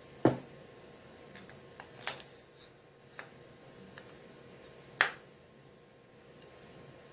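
Steel clutch parts (a threaded shaft, a pulley and a hex nut) knocking and clinking against each other and a wooden workbench as they are handled and fitted together. Three sharp knocks stand out: a dull thud about a third of a second in, then ringing metallic clinks about two and five seconds in, with lighter ticks in between.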